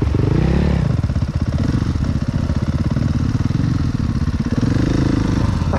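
Dirt bike engines running: a nearby motocross bike idles steadily while another bike revs and pulls away, its pitch rising briefly near the start and again near the end.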